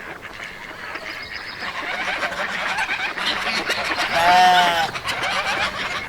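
Farmyard ambience: many overlapping small calls from poultry, with one loud, drawn-out animal call about four seconds in.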